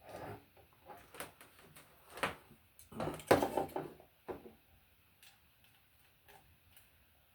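Hands handling speaker wires and audio equipment: a cluster of rustling, clicks and knocks over the first four and a half seconds, loudest about three seconds in, then a few faint clicks.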